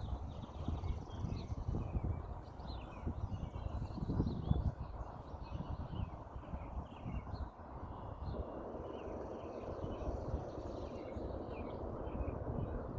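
A low, steady rumbling noise with no clear pitch, which evens out about eight seconds in, with small birds chirping throughout.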